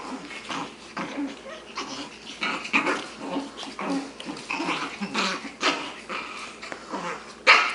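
Two six-week-old Shih Tzu puppies play-fighting, with short, irregular growls and squeaky cries throughout and a louder sharp sound near the end.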